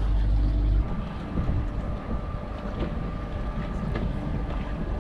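Wind buffeting the microphone, heaviest in the first second, over a steady low hum of boat machinery with a few faint constant tones.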